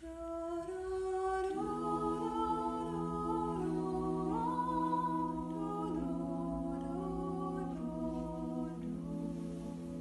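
Women's vocal quartet singing a cappella in close harmony. A single voice sings alone at first; the other voices join about a second and a half in on a held chord, the lowest note sustained while the upper voices move step by step.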